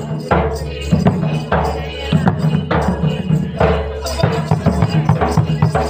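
Odia folk dance percussion: a large barrel drum (dhol) beaten in a driving rhythm, with strong accented strokes about once a second that ring on.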